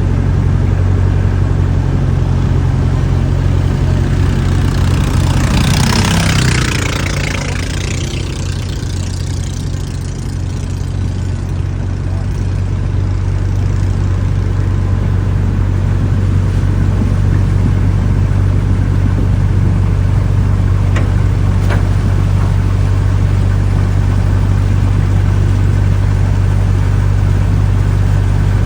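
An engine running steadily at idle with a deep, even hum, and a brief rushing hiss about five to seven seconds in.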